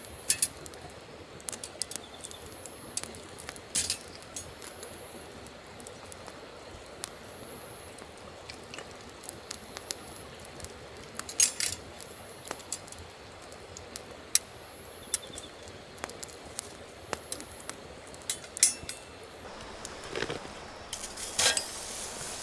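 Wood campfire crackling, with sharp pops scattered throughout and light metallic clinks from the grill rack. A steady high-pitched hiss sits underneath and cuts off near the end.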